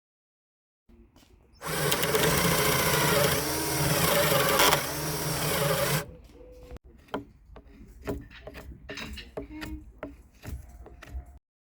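An electric power tool working wood for about four seconds, its motor pitch dipping and recovering under load, then a scatter of knocks and clicks before it cuts off.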